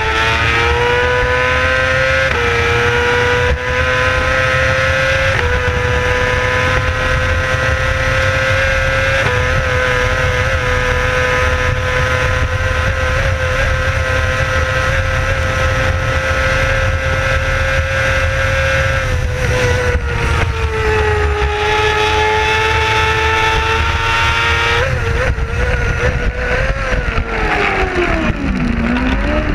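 Racing sidecar outfit's engine at full racing revs, heard onboard. The revs climb in the first couple of seconds and are held high with brief steps at gear changes. They drop about 19 s in, then fall steeply and climb again near the end, as the outfit slows for a corner and accelerates out.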